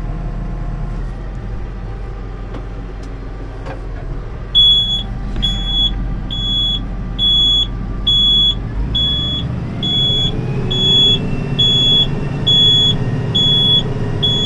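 Tractor engine running steadily, joined about four and a half seconds in by a high electronic warning beep repeating about every 0.7 seconds; around ten seconds in the engine note rises.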